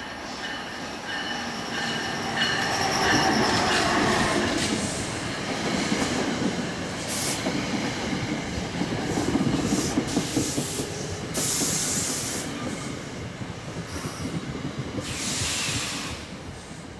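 Train moving on the rails, its wheels squealing in a high steady ringing in the first few seconds over a running rumble. Several short bursts of hiss come later.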